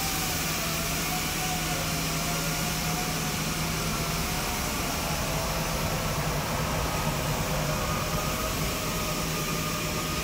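WoodTec Compact F2J automatic edgebanding machine running steadily: a constant motor hum with a faint, slightly wavering whine over a noisy rush of air.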